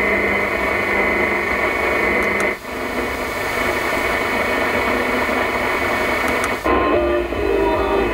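Car radio's medium-wave (AM) receiver stepping up the band in 9 kHz steps, giving hiss and static with steady whistles from weak, overlapping stations. The audio cuts out briefly at each step, twice. After the second step faint program audio comes through the noise.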